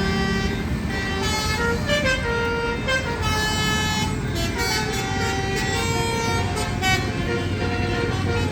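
Bus 'telolet' horns, multi-tone musical air horns, playing quick stepping melodies, several sounding at once, over the low rumble of road traffic.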